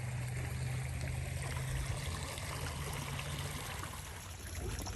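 Heavy rain and storm runoff water running across the ground, a steady even rush, with a steady low hum underneath.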